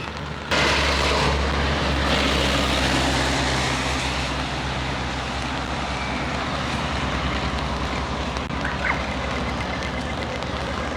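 Traffic on a wet road: a steady hiss of tyres on water with a low engine rumble underneath. It comes in suddenly about half a second in and eases off gradually after a few seconds.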